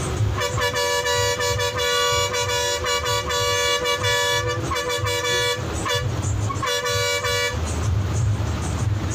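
Bus horn sounding a long multi-tone blast of about five seconds, then a short second blast about a second later, over the steady low rumble of the Ashok Leyland bus's diesel engine under way.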